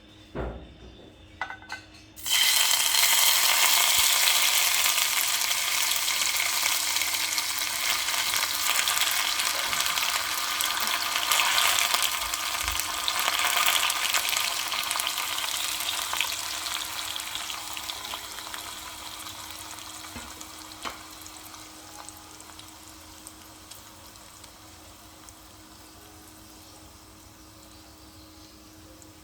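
Steady hiss of falling water that starts suddenly about two seconds in, after a few light clicks, and slowly fades away over the last ten seconds.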